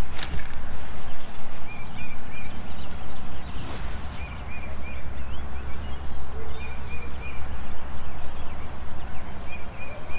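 A songbird singing short, clear notes in runs of three or four, repeated every second or two, over a low rumble of wind on the microphone. There are two brief clicks, one at the start and one a little past a third of the way in.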